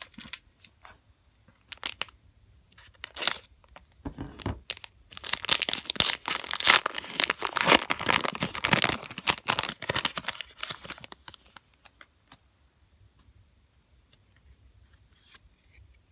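Foil wrapper of a trading-card pack crinkling and tearing open: scattered crackles at first, then a dense stretch of tearing and crinkling for several seconds in the middle, fading to faint rustling near the end.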